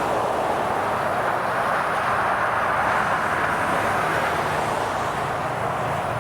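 CSX freight train running past: a loud, steady rush of wheel-on-rail noise that swells up just before and holds, with a faint low hum underneath.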